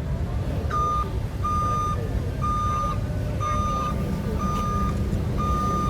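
Amphibious excavator's diesel engine running with a steady low rumble, while its travel alarm beeps at one pitch about once a second, starting about a second in.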